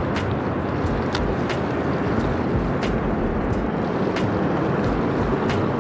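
Steady rush of city traffic mixed with wind on the microphone beside a concrete canal, with faint, irregular light ticks scattered through it.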